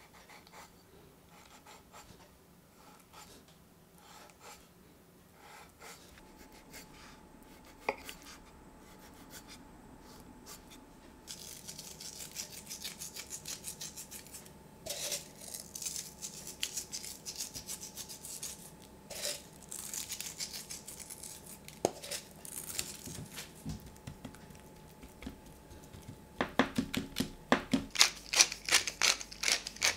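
A knife faintly scraping as it scores raw duck breast skin on a wooden board. Then a crackling hiss as sea salt flakes are sprinkled over the duck breasts in a metal tray. Near the end come rapid even clicks, about four a second, from a pepper mill grinding.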